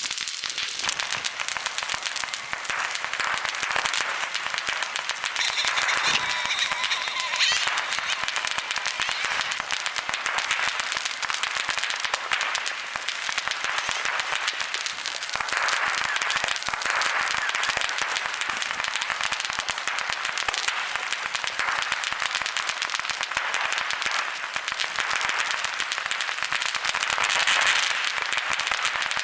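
Fireworks crackling and popping in a dense, continuous rattle, with a brief steady whistle about six seconds in.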